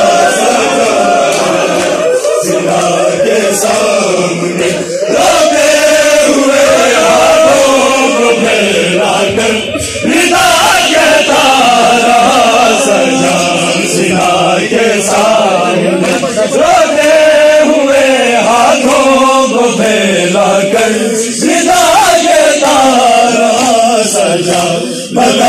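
Men chanting a noha, a Shia mourning lament, in unison: several reciters sing the lines into a microphone while the group chants along.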